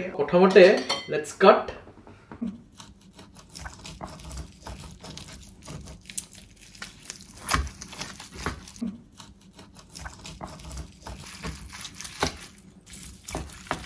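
A knife cutting into an oven-roasted lamb joint on a wooden board while the meat is torn off the bone by hand: soft, scattered scrapes and crackles with a few sharper knife knocks.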